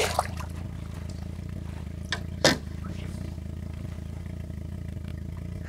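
Boat motor idling with a steady low hum. About two and a half seconds in there is a short splash as a smallmouth bass is lifted from the water beside the boat.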